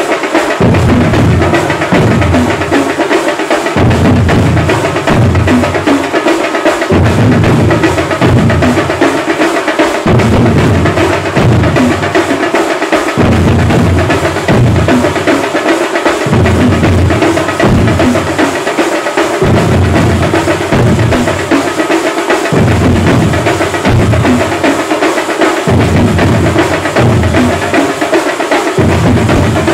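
A large ensemble of two-headed barrel drums beaten with sticks, playing loud in a driving rhythm that repeats in short phrases, with hand cymbals clashing over it.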